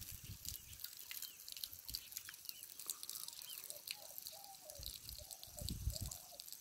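Faint outdoor ambience: a thin stream of water trickling and dripping steadily from a hand pump spout that runs on its own, unpumped. A few short bird chirps come about two seconds in, and a run of lower calls follows between about four and six seconds, with a brief low rumble near the end.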